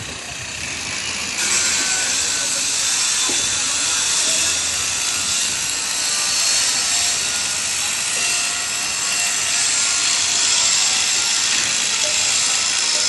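Construction-site work noise: a steady, loud hiss of tool noise that steps up about a second and a half in and runs on evenly.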